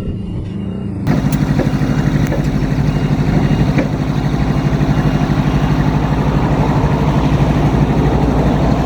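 Engine of the cherry picker running steadily with a low pulsing note, cutting in abruptly about a second in after a quieter low hum.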